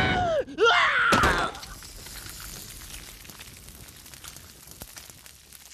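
A man screaming while burning alive, breaking off for a moment and stopping about a second and a half in. Then a quiet crackling of flames with small pops, slowly fading.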